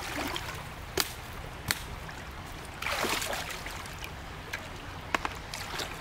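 Shallow water splashing and sloshing, with sharp slaps about a second in, just under two seconds in and again after five seconds, and a longer splash near the middle.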